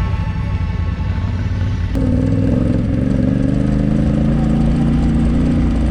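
Off-road vehicle engine running steadily while driving. About two seconds in there is a click, and the engine note changes to a stronger, higher set of tones.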